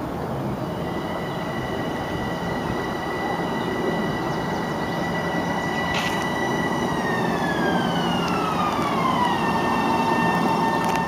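Metro-North M7A electric multiple-unit train coming in over steady wheel and rail noise, its traction motors giving a steady high whine. About seven seconds in the whine glides down to roughly half its pitch and holds there as the train slows.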